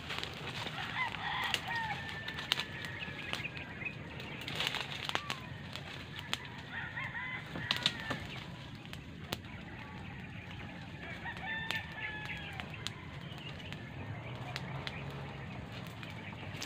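Birds calling in short chirps and clucks, over scattered crackles and snaps and a faint low hum.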